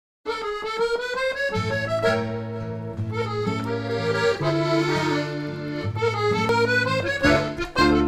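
Intro music with an accordion melody. Steady held bass notes join about one and a half seconds in.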